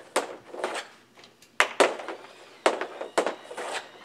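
Hockey pucks shot one-handed off synthetic ice: a quick series of sharp clacks of the stick blade on the puck, several followed about a quarter second later by the puck striking the net.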